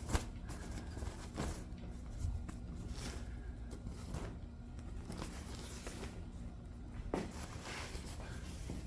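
Cloth flag rustling as it is handled and shaken out by hand, with a few soft knocks scattered through, over a steady low hum.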